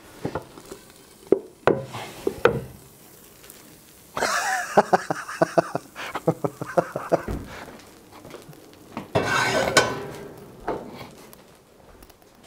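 A hot cast-iron pan is flipped with a wooden board on top and then lifted off the pizza: a few knocks of pan and board. Two spells of hissing and crackling follow, one about four seconds in and one about nine seconds in, from the hot pan and the bubbling cheese.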